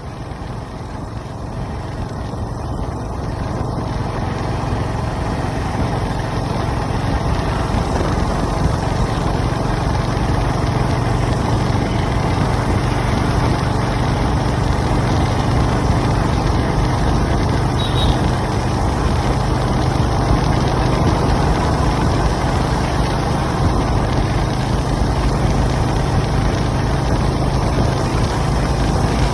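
Honda H'ness CB350 single-cylinder engine running steadily. It grows louder over the first several seconds, then holds an even level.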